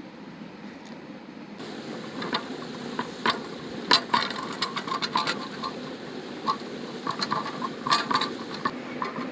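Irregular light taps and clicks, some in quick runs, over a steady low rushing background; the taps begin about a second and a half in.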